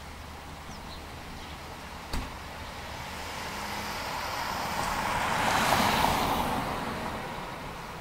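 A road vehicle passing by: a rushing noise that swells over a few seconds, peaks about six seconds in and fades away. A single sharp click comes about two seconds in.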